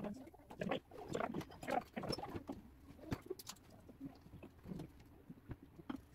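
Thick potato, leek and cucumber soup simmering in a pot, its surface popping and blurping in quick, irregular little bursts. The pops are busiest in the first couple of seconds and then thin out.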